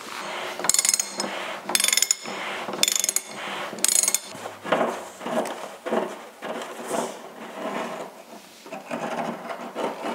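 Ratchet wrench on a water heater element socket clicking in four short runs about a second apart as the old element is loosened, then scraping and knocking as the loosened element is turned out of its threaded port by hand.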